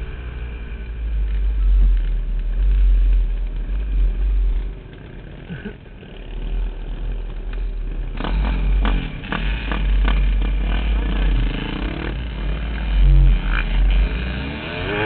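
KTM dirt bike's engine running and revving as it rides a dirt trail, its pitch rising and falling with the throttle, under heavy wind rumble on the helmet microphone. About eight seconds in, another dirt bike runs close alongside, adding its own revving engine.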